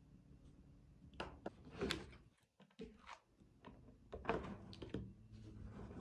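Small magnetic balls clicking and clacking against each other as a hexagon built from them is handled, in scattered clusters about a second in and again from about four to five seconds, over a faint steady low hum.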